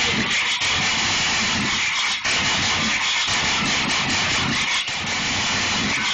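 Large crowd cheering and screaming in a steady, loud roar.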